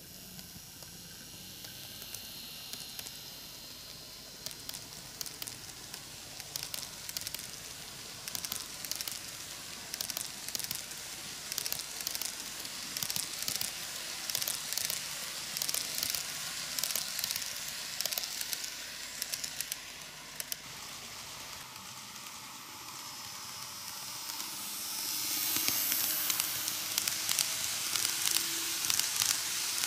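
N gauge model train, a KATO ED79 electric locomotive pulling ten passenger coaches, rolling along the track: a steady hiss of wheels and motor with rapid, irregular clicking. It grows louder about 25 seconds in as the coaches pass close.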